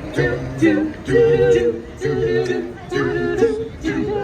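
Vocal group singing together in harmony, several voices holding notes in short phrases.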